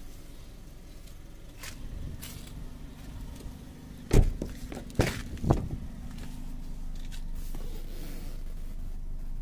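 A car door being opened from the outside: the outer handle pulled and the door latch releasing with three sharp clunks in just over a second, about halfway through, the first the loudest, after a few lighter clicks.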